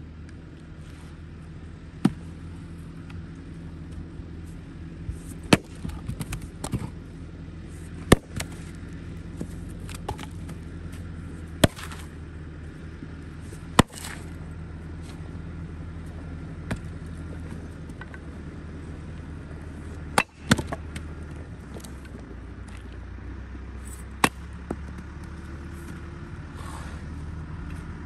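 Axe splitting maple firewood rounds: about seven sharp chops spaced a few seconds apart, over a steady low machine hum.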